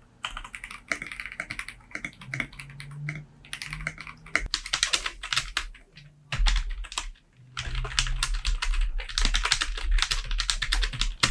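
Rapid typing on a membrane keyboard: a dense run of key presses and clicks, with a pause of about a second past the middle.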